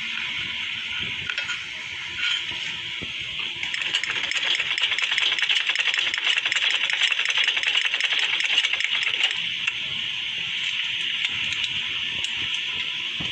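Sewing machine stitching through trouser fabric: a fast, even run of stitches starting a few seconds in and stopping after about six seconds, with softer knocks before and after.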